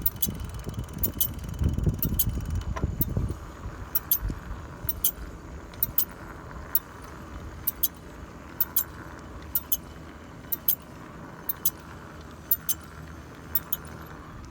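Disc brake on an Ecotric Rocket electric bike making a light metallic chafing tick while riding, about once or twice a second, over a low rumble in the first few seconds. The owner traced the noise to brake pads with no synthetic grease where the caliper piston presses on them and to slight runout in the rotor making the caliper chatter.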